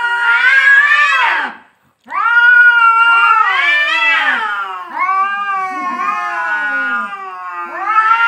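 Two domestic cats caterwauling at each other in a standoff: long, wavering yowls that rise and fall in pitch, with a short break about two seconds in. This is the threatening yowl of a fight face-off.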